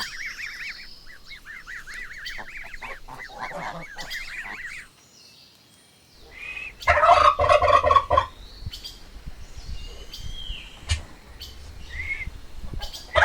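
Goslings peeping: rapid, wavering high-pitched chirps for about five seconds, then a short pause. After it comes a turkey gobbling in a loud, fast rattling burst, with a second gobble at the very end.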